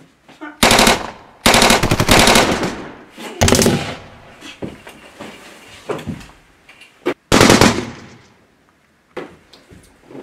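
Machine-gun fire sound effect: several bursts of rapid automatic shots, the longest about a second and a half, with a last short burst near the end.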